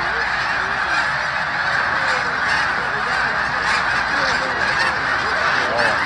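A huge flock of snow geese calling all at once as it lifts off and flies overhead: a steady, dense mass of overlapping honks.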